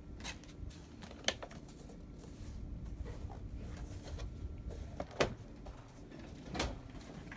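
Plastic Chromebook case being handled: a few sharp clicks and knocks as the laptop is turned over and set down on the desk, the loudest about five seconds in.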